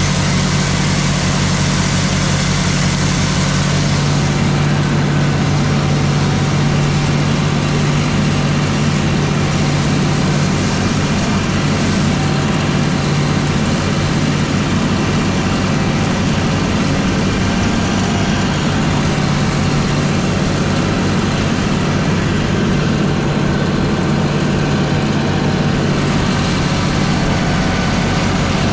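A diesel engine running steadily at an even speed throughout.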